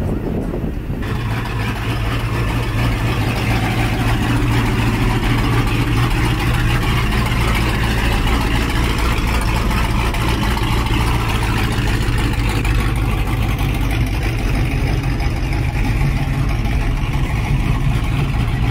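Truck engines running at a steady idle, a constant low drone with no revving.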